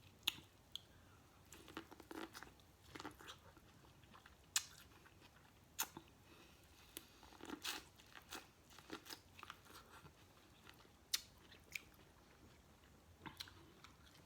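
Faint close-miked eating of seafood: chewing and smacking with irregular sharp clicks and crunches scattered throughout.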